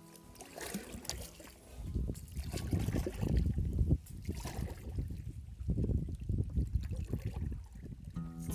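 Paddle strokes in river water from a small wooden boat: irregular splashing and dripping with low, rough surges, in two spells, each lasting a couple of seconds. Background music comes back in near the end.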